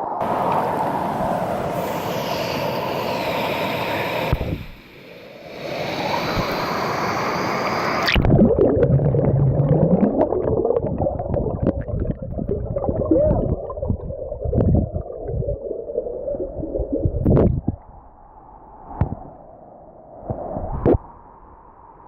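Water gurgling and splashing close against the microphone. About eight seconds in it turns suddenly dull and muffled, with irregular knocks and sloshes, as if under the water.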